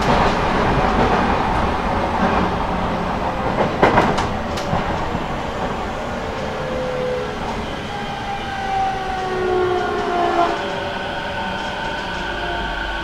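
Running sound inside a Toei 10-300 series third-batch train car with a Mitsubishi two-level IGBT-VVVF inverter and TIM-10 traction motors: steady wheel and rail noise with a sharp knock about four seconds in. From about halfway, several inverter and motor whine tones slide slowly downward as the train slows.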